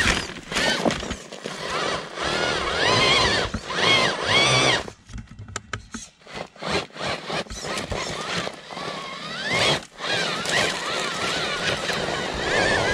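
Small electric RC rock crawler climbing a rock step: its motor and gear drive whine, rising and falling in pitch as the throttle is worked, with the tyres scrabbling on the rocks. About halfway through the whine drops away to a quieter stretch of scattered clicks and taps, then starts again near the end.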